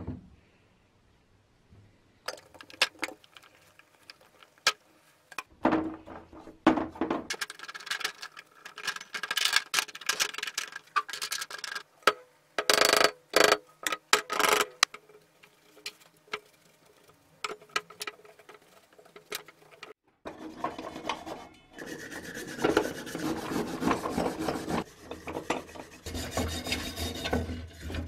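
A wire brush scrubbing paint-stripper gel over a cast-metal balance frame, a steady rasping rub through the last third. Before that, irregular clicks and short scraping bursts as the stripper can and parts are handled.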